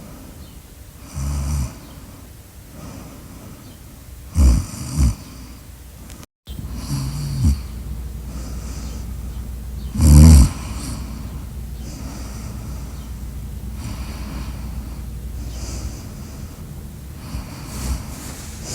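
Loud snoring: separate snores at uneven intervals, two short ones close together about four and a half seconds in and the loudest about ten seconds in. The sound drops out completely for a moment just after six seconds.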